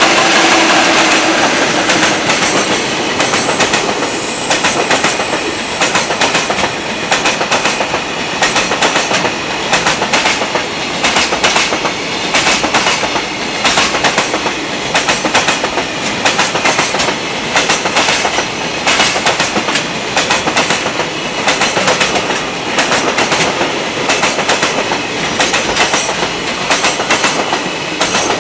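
Freight train of container flatcars running past at speed, the wheels clacking over rail joints in a steady repeating clickety-clack over a continuous rolling roar. The roar is loudest at the start, just after the electric locomotive has gone by.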